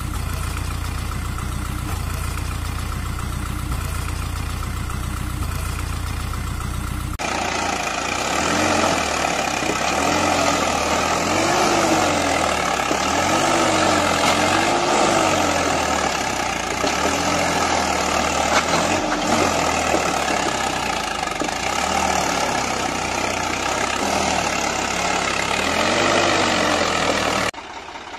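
Tractor engine sound, running steadily. About seven seconds in it switches suddenly to a louder engine sound whose pitch repeatedly rises and falls, like revving under load, then cuts off just before the end.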